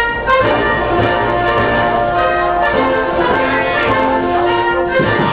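Orchestral music with brass, held notes and chords playing steadily.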